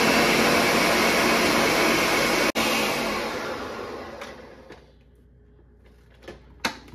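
Countertop blender running on medium, blending pineapple chunks, juice and teriyaki sauce into a thin marinade. It breaks off for an instant about two and a half seconds in, then fades out over about two seconds, followed by a few light clicks near the end.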